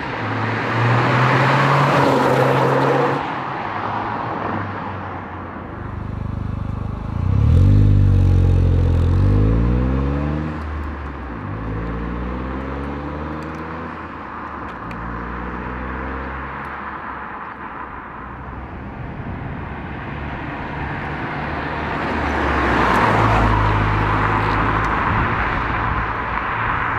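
Toyota GR Yaris engine running through an HKS Legamax Premium resonated exhaust. It pulls hard about a third of the way in, its note climbing and dropping several times as at upshifts. A rushing noise swells near the start and again near the end.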